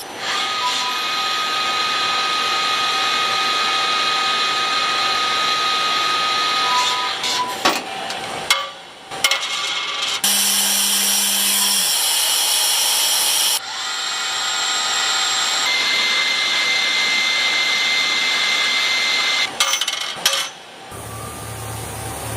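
CNC machine running a cut, with spindle and tool whine over steady cutting noise. The sound changes abruptly several times between shots, including one stretch of loud hiss.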